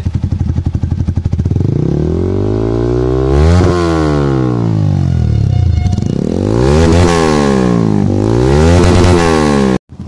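Single-cylinder motorcycles fitted with aftermarket slip-on exhausts, a Yamaha R15 V3 with a Leo Vince and a TVS Apache RTR 180 with an SC Project, idling and then being revved: one slow rev that peaks about three and a half seconds in and dies away, then two quicker revs near the end. The sound cuts off suddenly just before the end.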